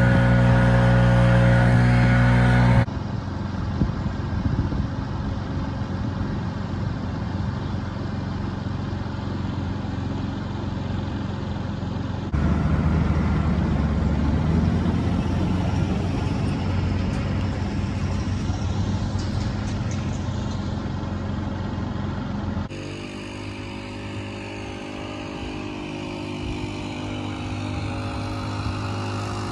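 Engines of work machinery running steadily across several spliced clips: the engine note changes abruptly about 3, 12 and 23 seconds in.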